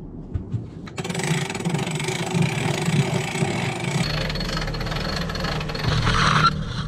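Sailboat cockpit winch being cranked with a winch handle to wind in the jib's furling line, giving a fast mechanical rattle and clicking. After a sudden change about four seconds in, steadier winch cranking with boat noise continues under way and stops abruptly near the end.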